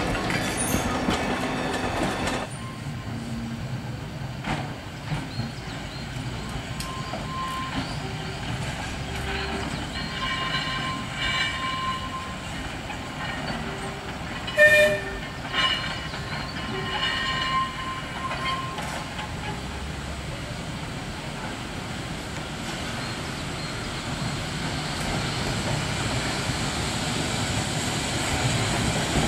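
Manx Electric Railway electric tramcar and open trailer running over street track, wheels rumbling and clicking over the rails. Between about 7 and 18 seconds in there are short squeals, and there is a sharp clank about 15 seconds in.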